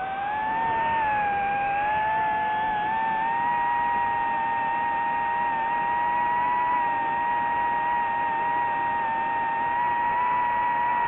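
Drone's electric motors and propellers whining. The pitch dips about a second in, then rises and holds nearly steady, with several tones running close together.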